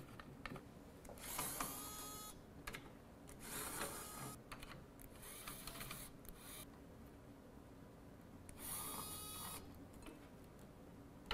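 Small electric screwdriver whirring in four short bursts of about a second each as it backs out the screws holding an LED board to its aluminium heatsink plate.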